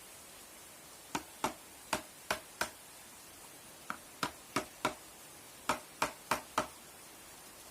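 Light hammer taps in quick groups of two to four, about three taps a second, each a sharp knock with a brief ring.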